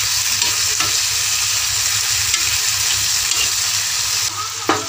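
Pork pieces with onion and garlic sizzling in hot oil in a pan, with a few light clicks of a spoon stirring them. The sizzle eases slightly near the end.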